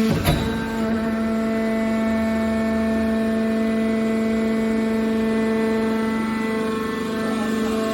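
Hydraulic can baler's power unit running with a steady pitched hum, and a single sharp knock just after the start.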